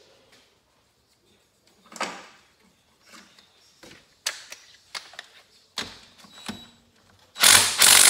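Scattered clinks and knocks of hand tools on the workbench, then near the end a cordless DeWalt impact wrench starts hammering on the cylinder head bolts of a Honda TRX300 engine.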